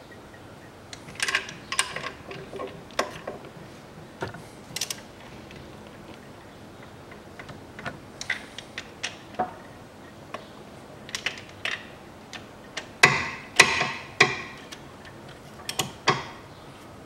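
Ratchet wrench clicking in short irregular bursts, with metal clinks of the tool, as the bolts of a new front engine mount are tightened. The busiest, loudest run of clicks comes about three quarters of the way through.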